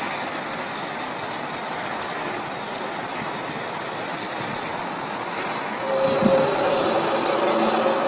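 A steady rushing noise with a low, steady drone tone that comes in about six seconds in and gets louder: one of the unexplained humming 'strange sounds' heard in the sky.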